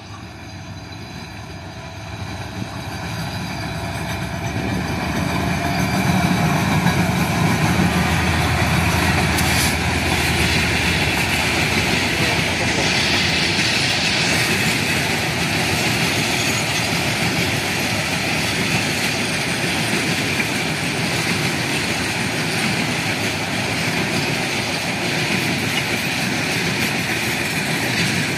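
Diesel locomotive of a Bangladesh Railway express train approaching and passing, growing steadily louder over the first six seconds. Then comes the steady rolling noise of the passenger coaches' wheels running by on the rails.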